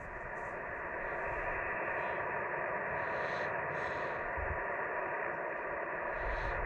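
Steady static hiss from an amateur radio transceiver's speaker while it receives no signal, cut off thin and narrow as through a voice-channel filter.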